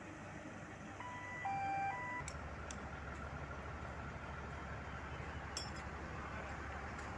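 Faint steady low rumble of heavy construction machinery running, with a few light clicks. About a second in there is a short electronic beep of three tones, two alike with a different tone between them.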